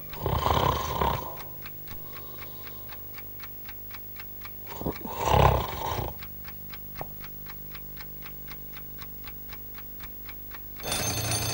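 Mechanical twin-bell alarm clock ticking, about four ticks a second, while a sleeping man snores loudly twice, several seconds apart. Near the end the alarm bell starts ringing.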